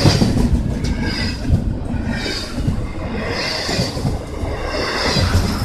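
Norfolk Southern container train's cars rolling past, steel wheels clattering over rail joints in a steady rhythm that repeats about every second or so.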